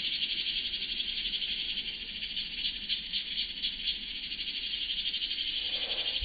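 Steady, high-pitched chorus of calling wildlife with a fast, even pulse to it.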